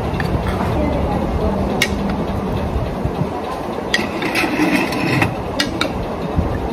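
A metal spoon clinking and scraping against a ceramic bowl and a metal plate while food is served, a few sharp clinks with a short clatter about four seconds in, over a steady low background rumble.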